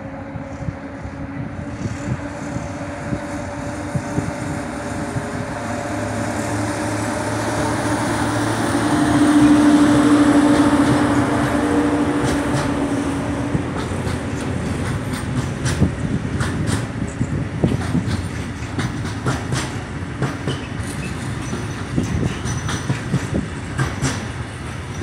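A PKP EU07 electric locomotive hauling a container freight train past. The rolling noise builds to its loudest about ten seconds in, with a steady hum as the locomotive goes by. Then the long string of container wagons rolls on, its wheels clicking sharply over the rail joints.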